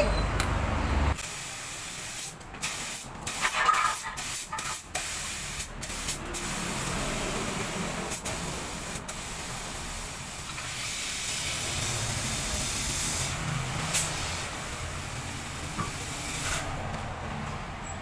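R22 refrigerant gas hissing as it is blown out through a chest freezer's refrigerant tubing to flush out oil and moisture. The hiss breaks up in short gaps for the first few seconds, then runs steady, and fades near the end.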